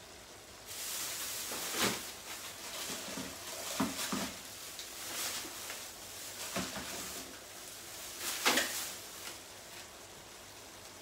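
Tomato sauce with crabs and prawns sizzling and spluttering in a wide steel pan, with a few sharp clicks and knocks. The hiss starts about a second in and dies down near the end.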